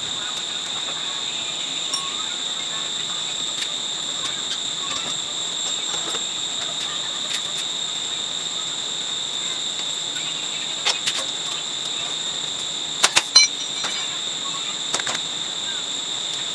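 Steady high-pitched insect drone, with a few sharp clicks of tool work on the motorbike about eleven seconds in and a louder cluster about thirteen seconds in.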